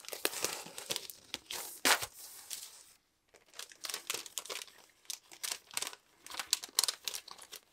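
Clear plastic sleeve crinkling and rustling as sticker sheets and vellum are handled and slid out of it, in irregular crackles with a brief pause about three seconds in.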